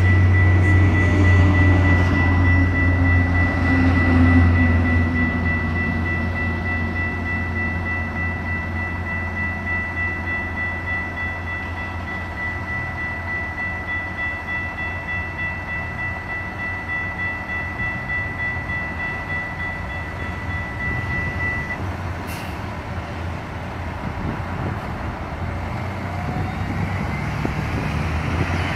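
Railroad grade-crossing bell ringing steadily while the Metrolink train clears the crossing, its rumble fading with a falling pitch over the first few seconds over a bus diesel idling close by. The bell stops about three quarters of the way through as the gates finish rising, with a clunk just after, and near the end the bus engine rises in pitch as it pulls away.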